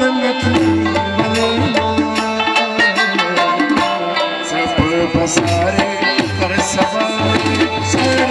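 Harmonium and tabla playing a folk-music passage: sustained reedy harmonium notes over quick, even tabla strokes, with the low bass drum of the tabla sounding underneath.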